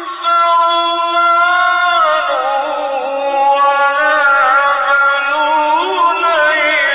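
A man's voice reciting the Quran in melodic, chanted tajweed. A short breath at the start is followed by a long held note, which about two seconds in slides down into ornamented, wavering turns of pitch.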